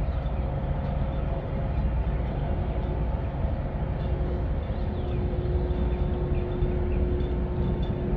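Large container ship moving past at close range: a steady low drone of its engines and machinery, with a few faint steady hums above it.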